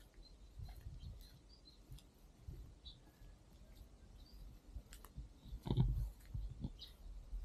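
Faint outdoor ambience with scattered short bird chirps, a few sharp clicks, and low thumps and rumble on the microphone; the loudest thump comes about six seconds in.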